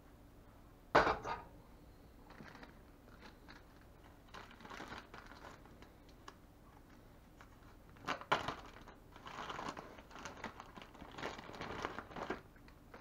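An aluminium saucepan set down with a clank on an electric coil burner about a second in, then a zip-top plastic bag crinkling in bursts as it is opened and handled.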